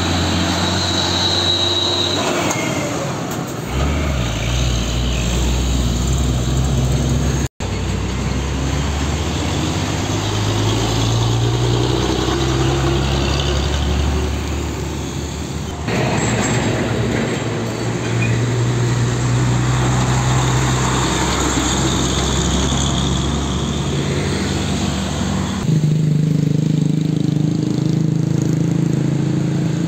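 Loaded Mitsubishi Fuso diesel trucks driving past on a road, their engines running steadily under load. The engine sound changes abruptly three times as one passing truck gives way to the next, with a brief dropout about seven seconds in.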